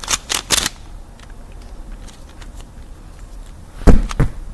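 Handling noise: a quick run of small clicks at the start, then quiet, then two heavy thumps close together near the end.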